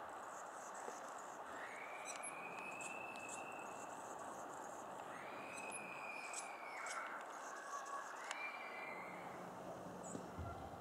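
Bird calls over a steady background hiss: quick, high chip notes and three long, steady whistled notes, each held for a second or two at slightly different pitches.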